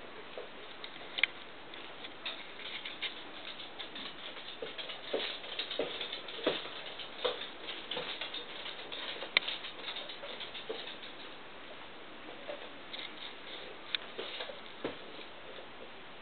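A toddler moving about on the floor: irregular light taps and pats of small hands and feet, with a couple of sharper clicks, about a second in and near the middle.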